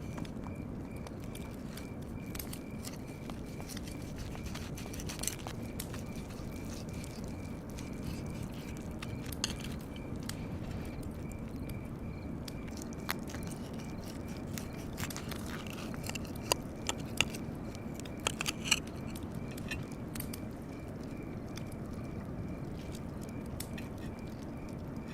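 Outdoor ambience with a steady low background and scattered small clicks and crackles, several sharper ones bunched together a little past the middle, over a faint steady high tone.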